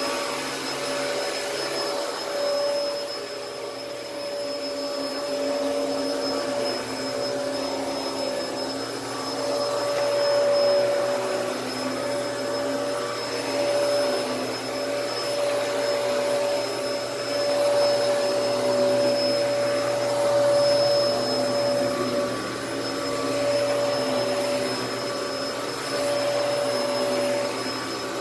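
Dyson DC14 upright vacuum cleaner running while vacuuming, a steady motor whine with a strong tone that cuts out and comes back every few seconds and a level that swells and dips. The owner puts its odd sound, and the brush bar stopping now and then, down to a worn-out brush-bar clutch.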